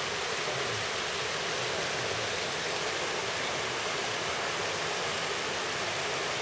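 Steady rush of water on the Minoo River, an even hiss of falling and flowing water with no break.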